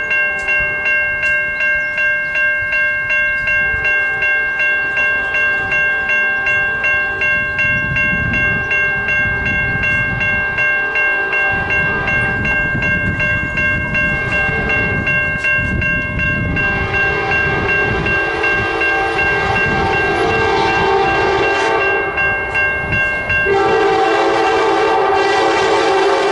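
Railroad crossing bell ringing about twice a second as an Amtrak Piedmont passenger train approaches. Well over halfway through, the train's horn and running sound come in and grow louder for the last few seconds.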